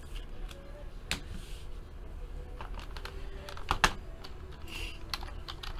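Irregular clicks of typing on a computer keyboard, a few keystrokes at a time with pauses between, the loudest just before four seconds in.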